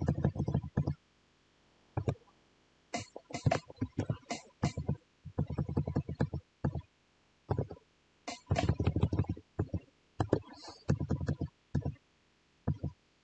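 Computer keyboard typing: irregular bursts of keystrokes with short pauses between them.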